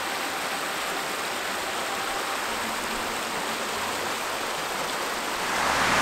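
Steady rush of a rain-swollen creek running over rocks, an even hiss of flowing water that grows louder near the end.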